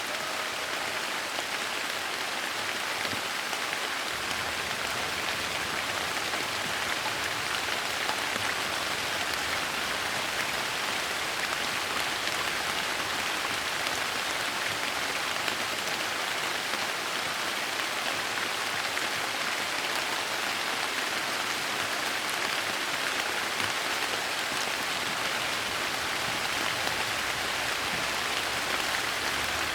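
Soft rain falling steadily, an even hiss of drops.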